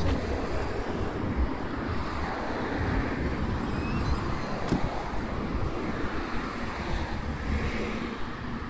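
Wind buffeting the microphone, a gusty low rumble over a steady outdoor hiss.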